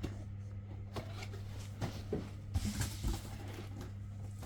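Soft handling noises of a package being opened by hand: a few scattered light clicks and short rustles over a steady low hum.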